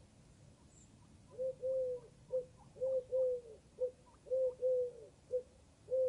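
A dove cooing in three-note phrases, the middle note longest, repeated about every second and a half, starting about a second and a half in.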